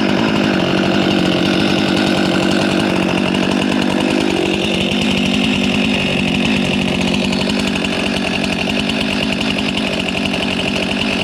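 Chainsaw running loud and steady.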